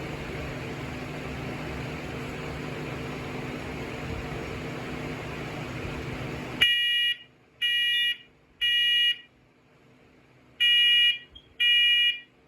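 A steady hiss with a faint hum, cut off suddenly about two-thirds of the way in by a smoke alarm sounding. The alarm gives high-pitched beeps of about half a second each, three in a row, a pause, then three more. This is the temporal-three evacuation pattern of a smoke alarm under test.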